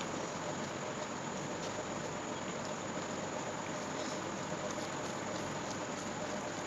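Faint eating sounds, small wet mouth clicks of chewing, scattered over a steady background hiss and hum.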